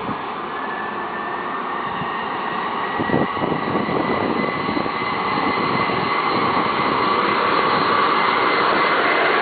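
A vehicle travelling along the track: steady road and wind noise with a faint high whine, growing gradually louder. A few knocks come about three seconds in.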